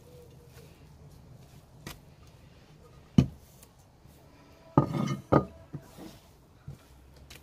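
A tray knocking and clattering against a wooden tabletop as it is handled: one hard knock about three seconds in, then a louder ringing clatter of two or three strikes around five seconds.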